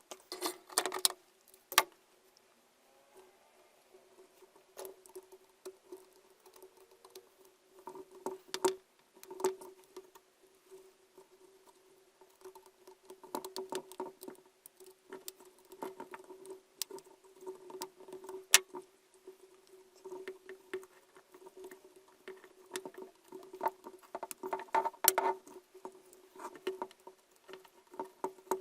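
Irregular small clicks, taps and scraping rattles of hard parts being handled and worked on, over a steady low hum.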